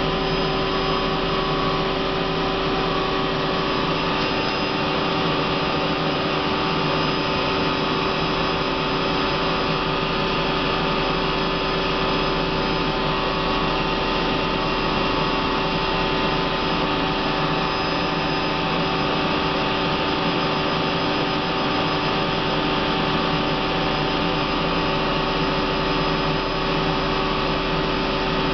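Hardinge Quest 10/65SP CNC turning center running under power: a steady machine hum and whine with several fixed tones that hold without change.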